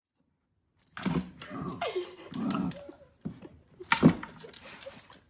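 A dog snapping at a sausage that pops up from the holes of a wooden game board: short knocks and clacks of jaws and wood, the loudest about four seconds in, after a second of silence.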